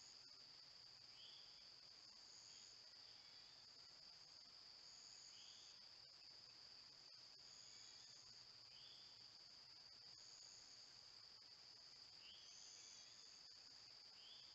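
Faint insect chorus: a steady high-pitched trill, with a brief higher buzz every couple of seconds and short chirps every few seconds.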